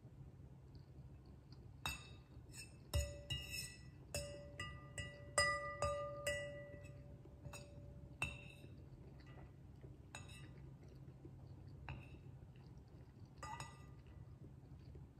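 Metal cutlery clinking against a ceramic bowl as noodles are stirred and twirled. It starts about two seconds in with a quick run of clinks, each leaving a short ringing note from the bowl, and thins to a few single clinks in the second half.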